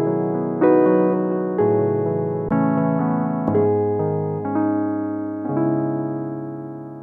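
Keyboard playing slow, sustained electric-piano chords, a new chord struck about once a second, the sound slowly fading as the piece draws to a close.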